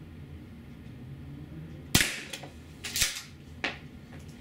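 A CO2 airsoft pump shotgun (APS CAM870) fires a single .68 calibre rubber round about two seconds in: a sharp crack, with the round striking and shaking the cardboard target trap. Two shorter clacks follow about a second and a second and a half later.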